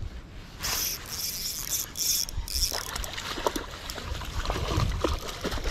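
Water splashing in several short bursts, as a hooked white bass thrashes at the surface while being landed. The splashes give way to lighter sloshing and small ticks about halfway through.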